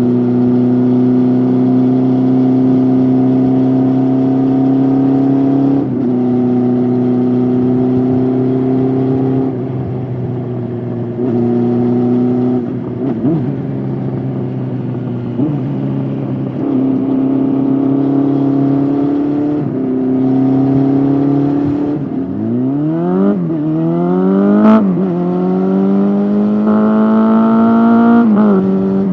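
Honda CB400SF's inline-four engine through a Yoshimura slip-on exhaust, under way: the pitch climbs slowly in each gear and drops at each of several upshifts. Near the end the engine revs hard twice, the first climb cut by a quick upshift with a sharp tick.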